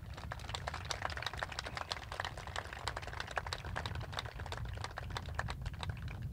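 Light applause from a small crowd: a patter of irregular hand claps over a low steady rumble.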